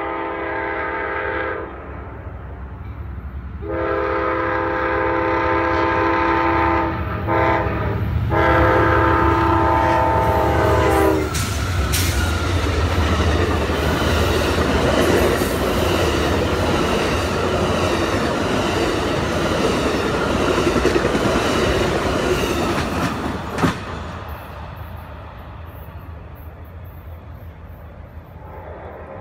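Amtrak passenger train's horn sounding the grade-crossing signal: the end of one long blast, then long, short, long. Then the train runs past at speed, its wheels clacking over the rail joints, and the noise fades away near the end.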